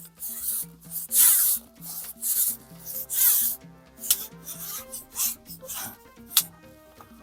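Korean bullhead catfish (동자개) croaking out of the water: an irregular series of short, rasping bursts, made by the fish grinding its pectoral fin spines. Soft background music with held notes plays underneath.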